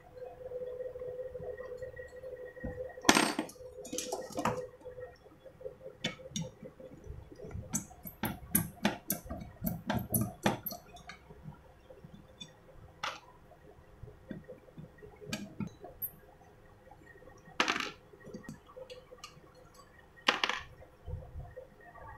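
Metal parts and screws of a clothes iron clinking and knocking on a wooden bench as the iron is taken apart, in scattered taps with a dense run of them in the middle.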